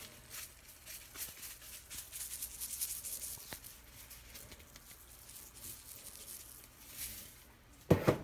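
Curry powder being shaken from a spice shaker over a frying pan of eggs: a run of quick, soft, hissy rattles in the first half. A brief louder knock comes near the end.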